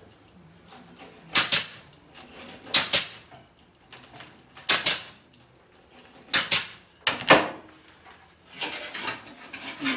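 Pneumatic C-ring gun fastening chicken wire, fired five times at uneven intervals of one to two seconds. Each shot is a short, sharp snap.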